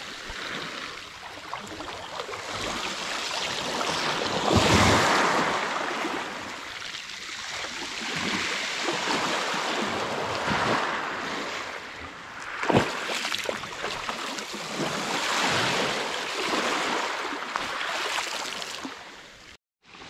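Small waves breaking on a pebble beach, the wash swelling and fading every few seconds. A single sharp click comes about two-thirds of the way through.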